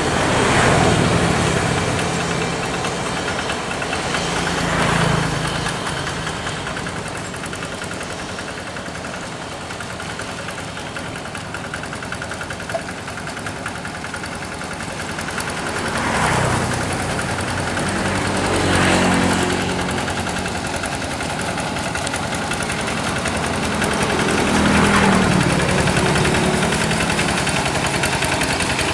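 Kubota RD85DI single-cylinder diesel engine of a Quick G1000 hand tractor running with a knocking beat, swelling louder several times as it comes under load or is throttled up.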